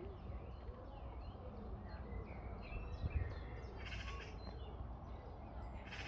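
Wild birds calling and singing, a mix of short whistled notes, with a harsh, buzzy call about two-thirds of the way through and another at the end, over a steady low rumble.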